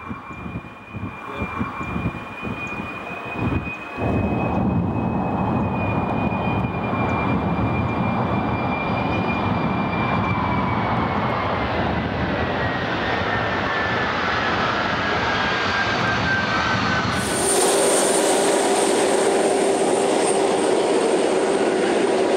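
Boeing X-32 jet engine running: loud steady jet noise with a high whine that slowly falls in pitch. The sound is quieter and uneven for the first four seconds, and about five seconds before the end it changes abruptly to a brighter, higher whine over a steady hum.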